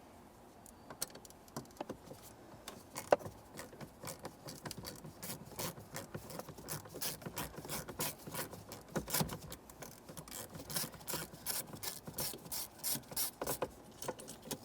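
Ratchet clicking in quick strokes as a 6mm Allen head mounting bolt on the steering column is backed out. The clicks are sparse at first and become a steady run of several a second from about five seconds in.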